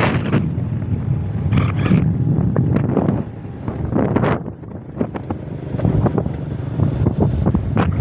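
Wind buffeting the microphone of a phone riding on a moving motorbike, in uneven gusts over a low, continuous rumble.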